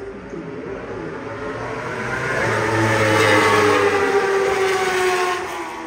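1000cc racing superbikes passing at full speed, their engine note growing louder as they approach, peaking about halfway through, then dropping in pitch and fading as they go by.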